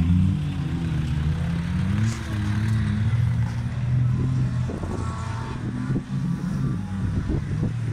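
Engines of several old race cars running on a dirt track, their notes rising and falling as the drivers rev and lift through the corners.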